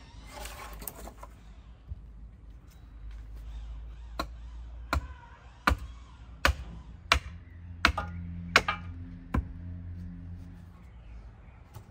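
Hatchet chopping into a branch held upright on a wooden chopping block: about eight sharp strikes, a little under a second apart, starting about four seconds in. Near the start there is a short rustle and clatter of branches being handled.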